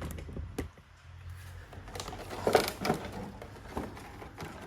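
Plastic packaging trays being handled and shifted: scattered light clicks and knocks, bunched together about two and a half seconds in.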